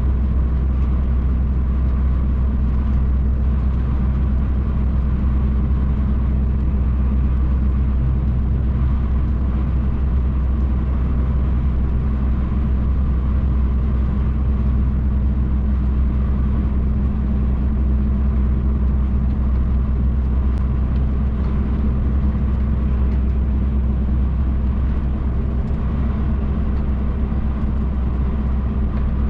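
MAN TGX truck cruising at steady speed, heard from inside the cab: a continuous deep diesel engine drone with road and tyre rumble, unchanging throughout.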